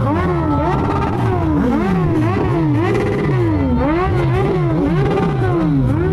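Several motorcycle engines being revved at once, their pitch repeatedly rising and falling back in quick, overlapping blips.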